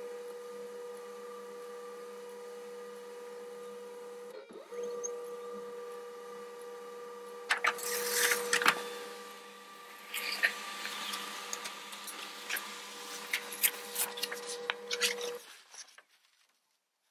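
HP laser printer printing a page: a steady motor hum, briefly interrupted about four seconds in, then clicks and rustling as the paper feeds through from about seven seconds. It stops at about fifteen seconds.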